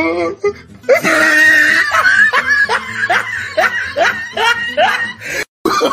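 A person laughing hard: a loud burst of laughter about a second in, then a run of short, quick laughs about three a second.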